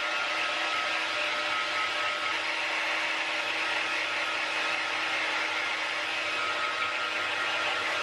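Handheld hair dryer running steadily, blowing hot air onto wet hair, with a faint steady motor hum under the rush of air.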